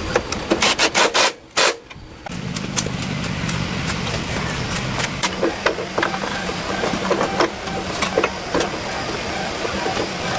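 Several sharp clatters, then from about two seconds in a Moto Dream 100cc motorcycle engine running steadily with a low even hum and light ticking.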